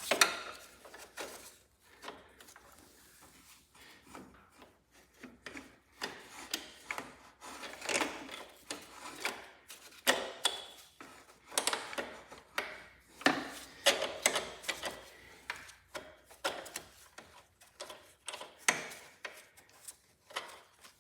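Hand work on metal parts of a lawn tractor's transmission control linkage: a long run of short clicks, knocks and scrapes, about one or two a second, as the parts are worked into place.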